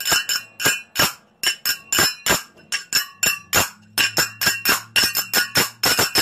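Turas, large metal hand cymbals, played one-handed: ringing metallic clashes in a quick, uneven rhythm of about three strikes a second, some in fast pairs. Played with one hand instead of both, which makes them sound odd.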